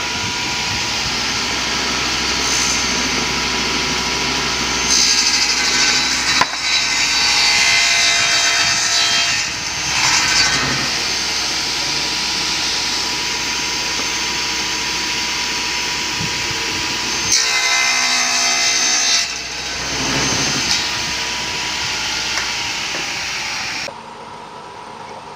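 Electric woodworking power tool running on wood: a steady motor whine with louder spells as it bites into the workpiece. It cuts off suddenly near the end.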